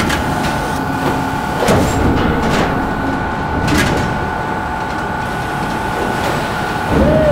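Stamping-press line with a robot arm handling sheet-metal blanks: a steady two-tone machine whine, several sharp clanks around two to four seconds in, and a whine that rises and falls near the end.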